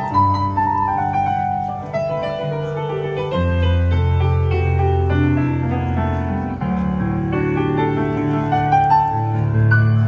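Piano music: a melody played over held low notes.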